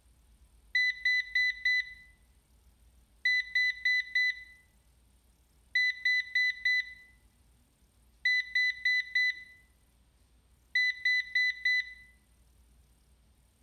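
Ecovacs DEEBOT N79S robot vacuum sounding its error alarm: five groups of four short, high beeps, each group starting about two and a half seconds after the last. This is its 20-beep error, a low-battery fault that a new battery cured.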